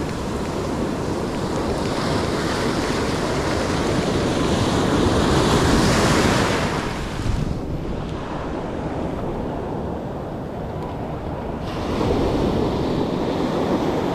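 Ocean surf washing and breaking on the beach, with wind buffeting the microphone. The wash builds to its loudest about six seconds in, goes duller for a few seconds, then swells again near the end.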